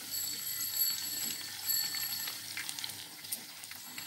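Tapioca masala vadai sizzling as they deep-fry in hot oil while a steel ladle turns them. Two high, steady ringing tones sound over the sizzle in the first half: the first about a second long, the second shorter.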